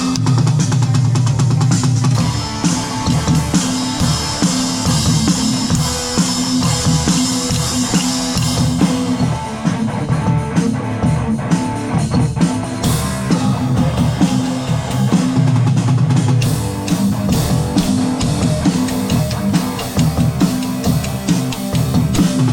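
Drum kit and guitar playing a rock riff together, with steady drum hits over a repeating low-pitched guitar line.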